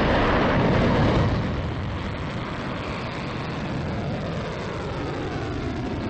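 Qased satellite launch rocket lifting off: a loud, dense rocket-engine roar, strongest in the first second and a half, then steadier and a little weaker as the rocket climbs away.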